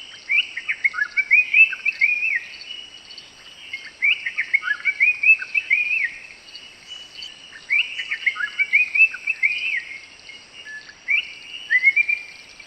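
Black-capped bulbul calling: four short phrases of quick chirping notes that rise and fall in pitch, each about two seconds long with pauses of a couple of seconds between them, over a faint steady background hiss.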